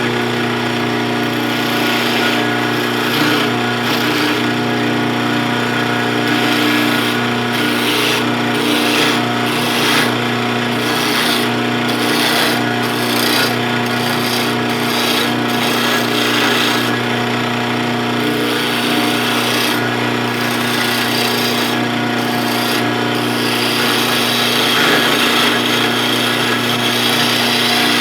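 Wood lathe running with a steady motor hum while a turning tool cuts the spinning wooden blank, a rough scraping hiss that swells and eases irregularly as the cut goes on.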